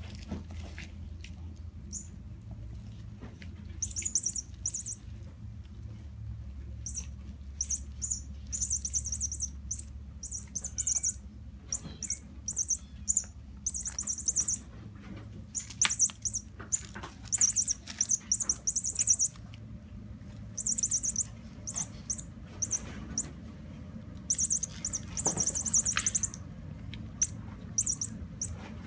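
Electronic chirping from a sound-making cat toy: short bursts of rapid, high-pitched chirps that start and stop again and again as a cat bites and kicks at the toy.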